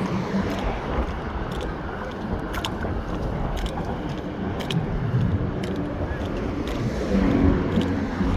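Road traffic on the interstate bridge: a steady rumble of cars and engines passing, swelling a little a few times. A faint short tick repeats about once a second.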